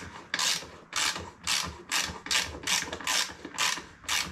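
Ratchet wrench clicking in short, evenly repeated strokes, about two a second, tightening a nut and lock washer onto a mounting bolt through a solar panel's frame.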